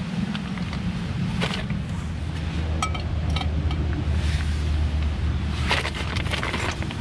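Small metal camping pot and mug clinking and knocking as they are set on a backpacking gas-canister stove: a couple of light clicks, a short ringing metal clink about three seconds in, and a cluster of knocks near the end, over a steady low rumble.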